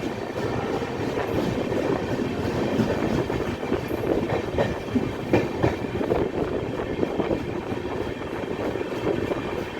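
Passenger coaches of an Indian Railways express train rolling past at speed, with a continuous rumble and an irregular clatter of wheels clicking over rail joints.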